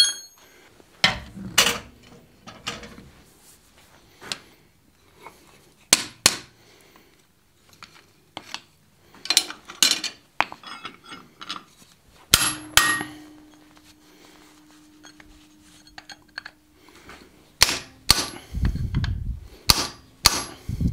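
Hand hammer striking a hot chisel held on a red-hot square steel bar on an anvil, splitting the bar. The blows come singly and in short groups of sharp metallic strikes with pauses between, and one blow leaves a ring that hangs for a few seconds.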